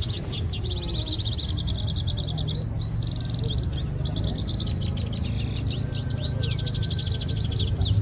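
Grey-headed goldfinch song: a fast, near-continuous run of high twittering chirps and trills, over a steady low rumble of background noise.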